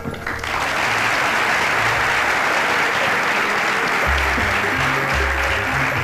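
An audience applauding steadily over background music; a low bass line in the music grows stronger about four seconds in.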